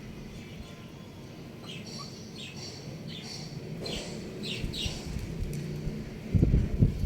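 Short, high chirps from a young rooster, a dozen or so quick notes, each falling in pitch. About six seconds in, a louder burst of low thumping noise takes over.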